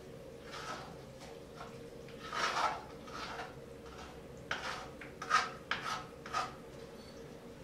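Spoon scraping and pressing blended gazpacho through a mesh sieve: irregular scraping strokes, several in a row in the second half.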